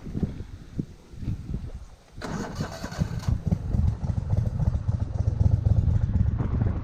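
Boat motor starting about two seconds in, then running with a steady low rumble.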